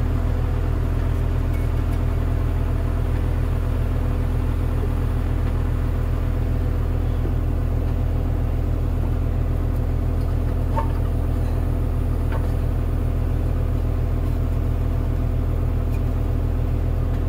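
A heavy machine's engine idling steadily at a constant, even pitch. A couple of faint metallic clicks come a little past the middle as parts are fitted by hand.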